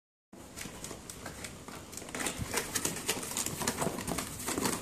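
Corrugated cardboard box flaps being pulled open and folded back by hand: a run of crackles, scrapes and clicks of cardboard against cardboard, busier toward the end.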